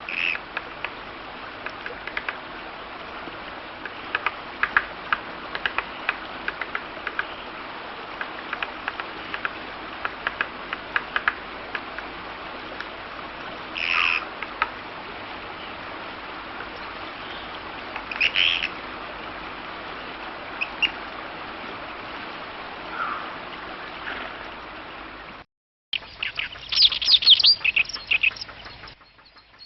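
Wild birds calling: a run of short, sharp chips with a few louder, longer calls over a steady background hiss. After a brief silent break near the end comes a louder burst of rapid calls.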